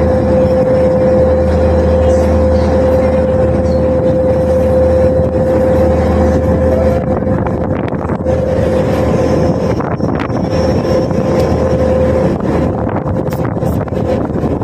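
A passenger boat's engine running steadily under way, a constant drone with a steady hum, mixed with the wash of water churned up in its wake.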